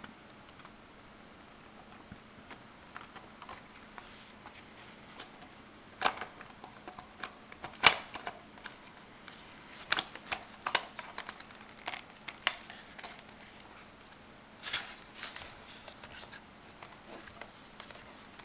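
Hard plastic clicks and knocks from a Dodge Ram integrated power module (fuse box) housing being handled and its upper and lower halves pressed and snapped together. The clicks come irregularly, the loudest about eight seconds in.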